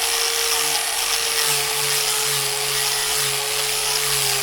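A cutting machine running steadily: a constant whine over a wash of hiss, with a lower hum coming in after about a second and a half.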